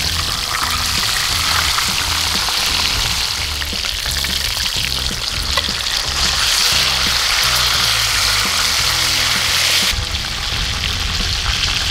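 Whole tilapia deep-frying in hot oil in a pan: a steady, loud sizzle that drops suddenly a little before the end.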